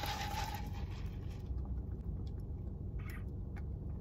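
Steady low rumble inside a car cabin, with a few short squeaky slurps of a drink being sipped through a straw near the end.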